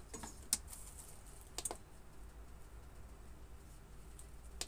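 A few sharp, light clicks and taps from hands handling an electric multicooker and its inner bowl: one about half a second in, another a little over a second later, and one near the end, over a faint low hum.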